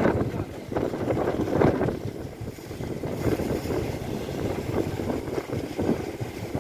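Wind buffeting the microphone, a rumbling, uneven noise that is stronger for the first two seconds and then settles.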